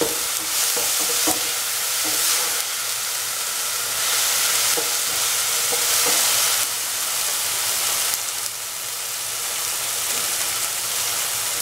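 Tomatoes, onion and garlic sizzling in oil in a frying pan as a spatula stirs and breaks up the tomatoes, with a few faint taps of the spatula against the pan.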